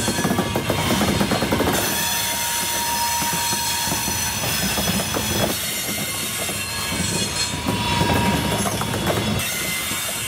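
CSX freight train rolling past at close range, its wheels clattering steadily over the rail joints, with a thin steady squeal from the wheels.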